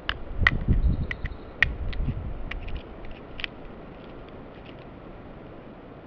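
A crow hammering a walnut with its beak against a log: a string of irregular sharp taps and cracks with dull knocks beneath, which stop about three and a half seconds in.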